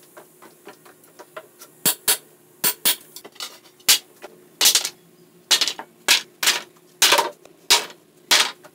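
Hammer blows on a wooden pallet, knocking its nailed deck boards loose. It is a quick, uneven run of sharp knocks, faint at first and louder after about two seconds.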